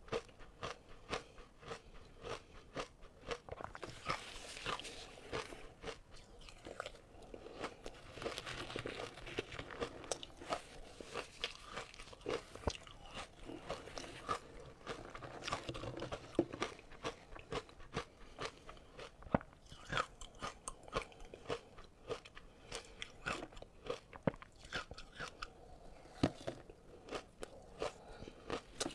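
Ice being bitten and chewed close to the microphone: a dense run of irregular crunches and cracks.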